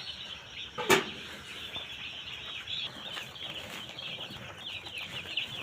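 Many day-old broiler chicks peeping all together, a dense high chirping that keeps up throughout; a single sharp knock about a second in.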